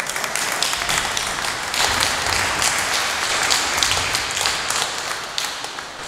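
An audience applauding, many hands clapping, swelling and then tapering off toward the end.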